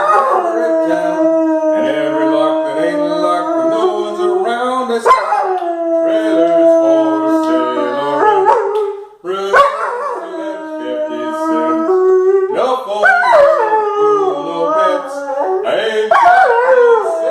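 White shepherd dog howling along to music: several long, wavering howls, each sliding down in pitch as it begins, with short breaks between them.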